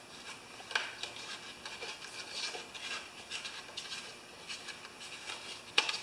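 Light clicks and rubbing from hands working a business card into the gap between a small engine's ignition coil and its flywheel, using the card as a gauge to set the coil's air gap. A sharper click sounds about a second in, and a louder one near the end.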